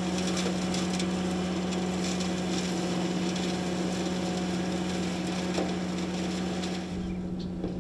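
John Deere 1025R's three-cylinder diesel engine and its PTO-driven flail mower running steadily while cutting grass, a steady hum over a hiss with light ticking. About seven seconds in the sound shifts lower and the hiss drops away.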